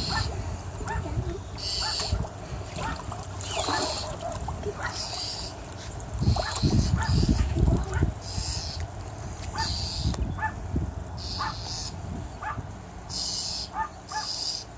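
Northern mockingbird giving a run of short, harsh rasping scold calls, one every second or two, alarm calling at a cat. A low rumble comes up in the middle.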